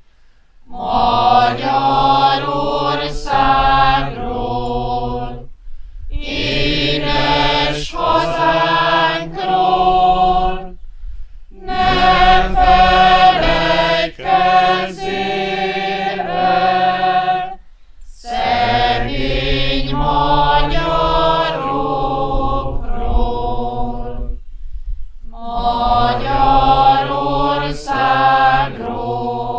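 Voices singing a slow, chant-like song together, in phrases of about five to six seconds with short breaths between them.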